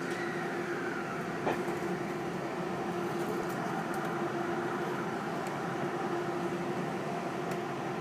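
Tobu 50090-series electric train pulling out and gathering speed, heard from inside the passenger car: a steady running noise and hum, with a motor whine that falls in pitch during the first second or so.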